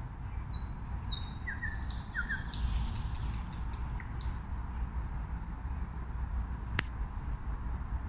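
A nightingale singing one phrase: high whistled notes and short slurs, then a quick dry run of about eight rattling clicks, ending about four seconds in. A single sharp click comes near the end, over a steady low background rumble.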